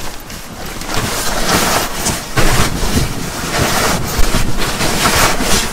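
Nylon shell of a goose-down sleeping bag rustling and swishing in irregular surges as it is stuffed by hand into its stuff sack.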